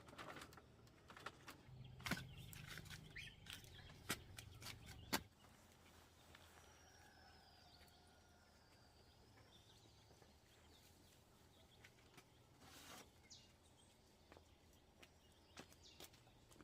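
Faint rural outdoor ambience: scattered clicks and knocks during the first five seconds, then a few faint bird calls near the middle.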